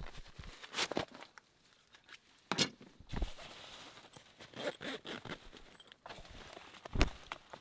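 Handling noise in a fabric hunting blind: clothing and blind fabric rustling as gear and binoculars are moved, with a few sharp knocks, the loudest about seven seconds in.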